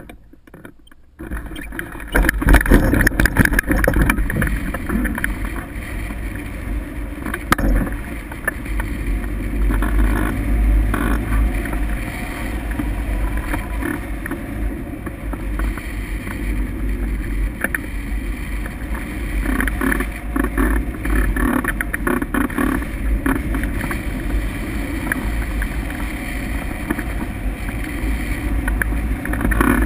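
Wind rushing and buffeting over the glider-mounted camera's microphone as a towed hang glider launches and climbs. It sets in about a second in and is loudest during the first few seconds of the launch.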